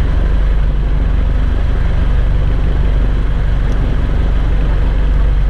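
Fishing boat's engine running steadily, a low, even hum.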